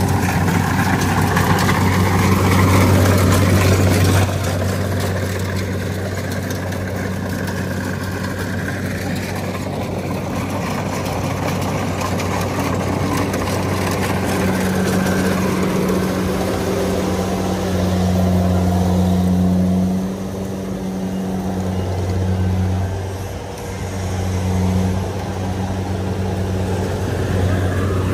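An engine running steadily with a low, even hum that swells and fades in loudness several times.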